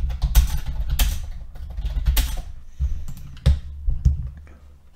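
Typing on a computer keyboard: an uneven run of key clicks.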